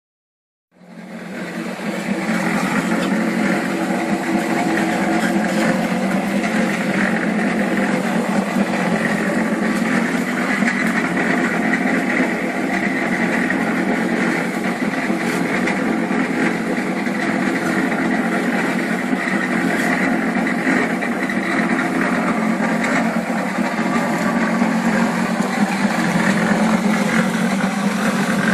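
Harbor Freight 1-1/4 cubic ft portable electric cement mixer running steadily, its drum turning a load of concrete mix. The sound comes in about a second in and then holds level.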